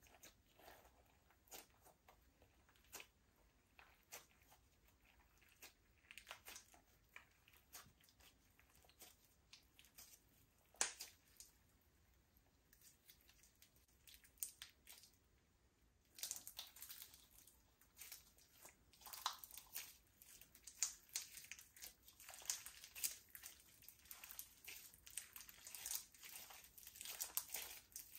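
Slime being worked by hand: faint scattered clicks and crackles, which become much denser and busier about halfway through.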